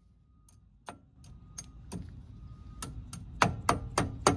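A mallet tapping on the front wheel hub of a Kawasaki Mule, about nine sharp taps that come closer together and louder from about three seconds in.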